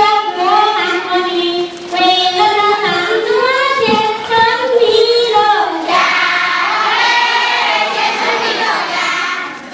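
A group of children singing a song together in chorus, their voices carrying a steady melody.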